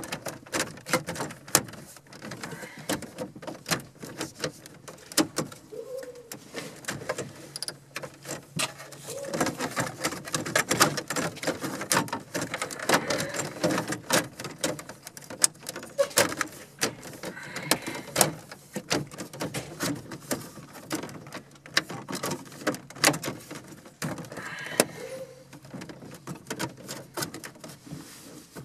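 Plastic dashboard trim bezel of a 1994 Saturn SL2 being pressed and tapped into place by hand around a newly fitted car stereo: a long run of small clicks and knocks.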